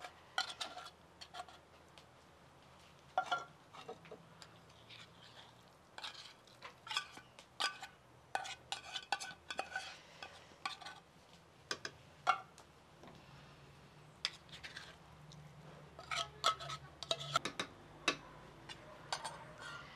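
Metal spoon scraping canned tuna out of tin cans and tapping against the cans and a glazed clay bowl, in irregular scrapes and clinks.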